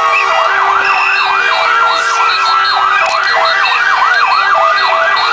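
A siren yelping: a fast rising-and-falling wail repeating about three times a second, with two wails overlapping slightly out of step, above the din of a celebrating crowd.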